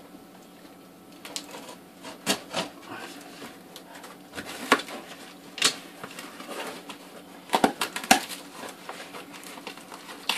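A cardboard box being opened by hand: a utility knife slitting the packing tape, then the flaps being pulled and pressed open, giving irregular scrapes, rustles and sharp knocks of cardboard.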